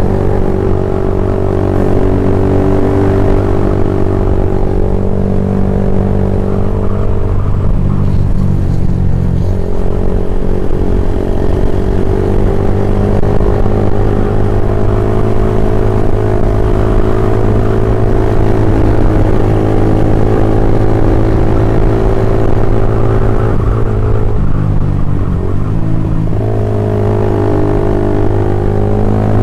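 Honda old-model CB150R motorcycle engine running loud through a BPro Racing 26 cm aftermarket racing silencer while riding. The engine note holds steady, then shifts pitch about a quarter of the way in and again near the end.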